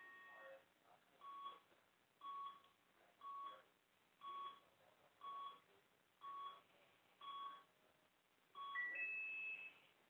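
Faint electronic beeps from electrophysiology lab equipment. A steady tone cuts off about half a second in, then eight short beeps follow at about one a second. Near the end comes a higher two-step tone.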